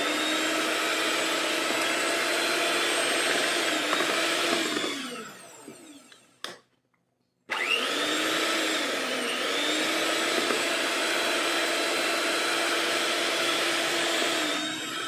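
Electric mixer beating whipping cream: a steady motor whine that winds down about five seconds in, cuts out for a moment, then starts again, rises in pitch and keeps running.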